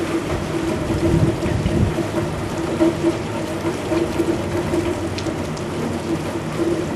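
Hurricane-force wind and heavy rain: gusts buffet the microphone with a low rumble over a steady rain hiss, and a low steady whistle keeps swelling and fading.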